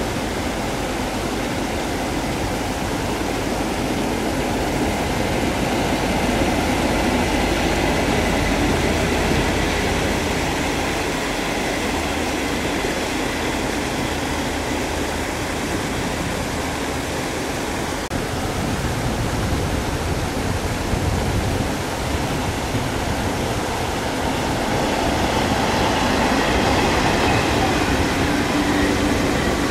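Steady splashing and churning of paddlewheel aerators in a fish pond, with a locomotive-hauled passenger train rumbling past on the line behind. A second train goes by near the end, and the sound grows louder.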